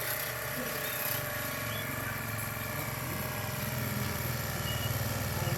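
Small power tiller engine running steadily with a rapid, even firing beat, growing louder in the second half.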